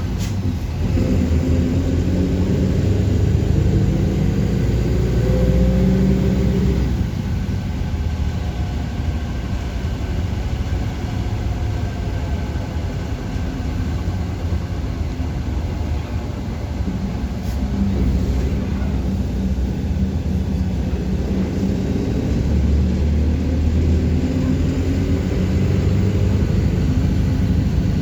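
City bus engine running as the bus drives, with a low hum that rises as it pulls harder for the first several seconds, eases through the middle, and pulls up again near the end.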